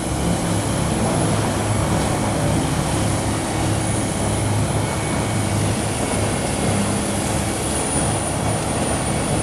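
Large engine-driven wood chipper running steadily: a low engine drone with a constant high-pitched whine over it.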